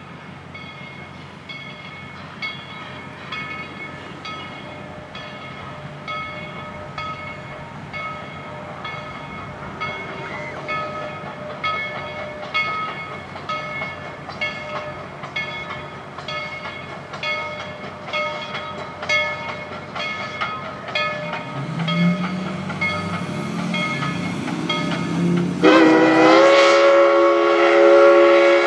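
Narrow-gauge steam locomotive No. 190 approaching with its bell ringing steadily, a little under two strokes a second, and its running noise growing louder. About 26 seconds in, its chime steam whistle starts and holds a loud multi-note blast.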